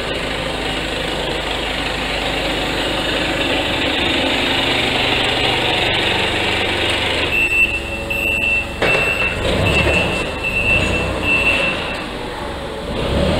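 Propane Mitsubishi FGC25K forklift's engine running as it drives. From about seven seconds in, a high steady beep repeats about twice a second for some four seconds: the forklift's reverse alarm as it backs up.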